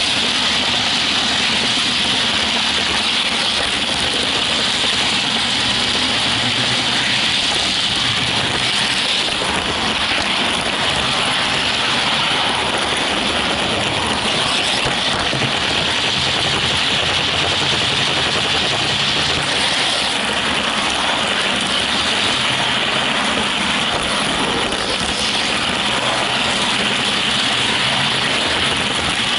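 Steady, fairly high-pitched running noise of an HO scale model train rolling along its track, wheels on rail and drive motor heard close up from a camera riding aboard the train.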